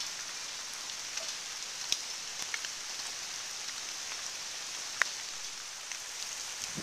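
Steady rain falling, an even hiss with a few sharper drops striking close by, the clearest about two seconds and five seconds in.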